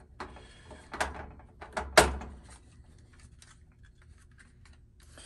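Handling noise from a plastic oven control board on an enamel stovetop: hands rubbing and pressing on it, a click about a second in, and a sharp knock about two seconds in, followed by a few light taps.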